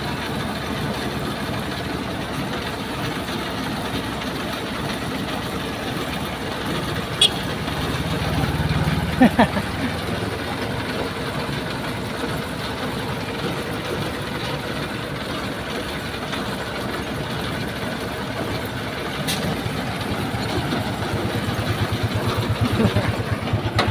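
Heavy crane recovery truck's diesel engine idling steadily, growing louder with an even low throb near the end. There is a sharp click about seven seconds in and a couple of short, sharp sounds about two seconds later.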